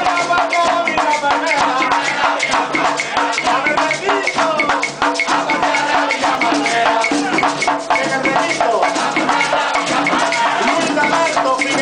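Live Puerto Rican plena: several panderetas (hand-held frame drums) beating a fast, steady rhythm, a güiro scraping, and men singing over them.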